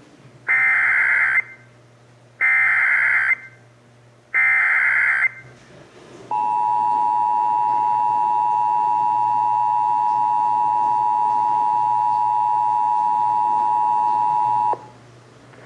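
Emergency Alert System broadcast header: three bursts of SAME digital data tones, each about a second long, with short gaps between them. Then the EAS two-tone attention signal comes in, a steady two-note tone lasting about eight seconds that cuts off suddenly. Together they open an emergency alert activation.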